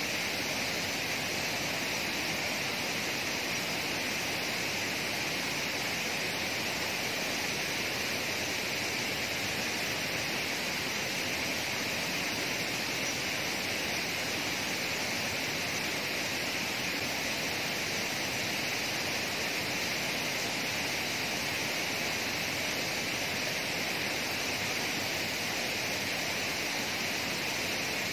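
Steady rush of water from a small waterfall and cascades tumbling over rocks in a stream.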